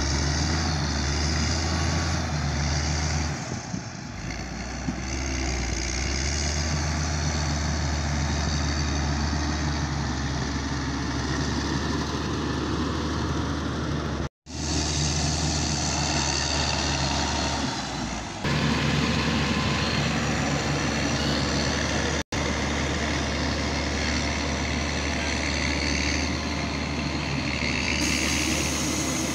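Caterpillar motor grader's diesel engine running steadily as the machine works the dirt, a constant low drone with mechanical noise over it. The sound drops out for an instant twice, about halfway through and again later.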